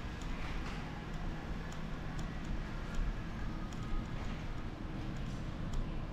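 Covered shopping-arcade ambience: a steady low hum with a run of light, sharp ticks at irregular spacing, roughly two a second.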